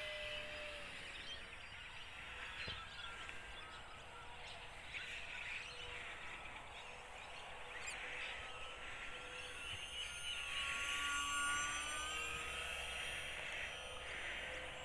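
Electric motor and propeller of a micro RC UMX Cessna 182 whining in flight, a thin high whine that drifts up and down in pitch as the plane turns and passes, over outdoor background noise.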